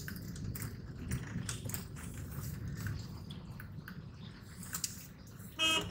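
Low rumble of a car inside its cabin as it rolls slowly through a waterlogged, rubble-strewn road, with scattered irregular crackles and splashes from the tyres in water and debris. A brief pitched tone sounds near the end.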